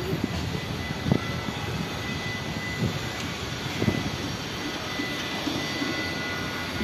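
Steady low rumble of distant urban background noise with a faint high steady tone, and a few soft knocks.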